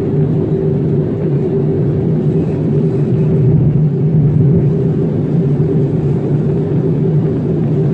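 Steady cabin noise of a jet airliner in cruise, heard from a window seat: an even rush of airflow with a low, constant engine hum underneath.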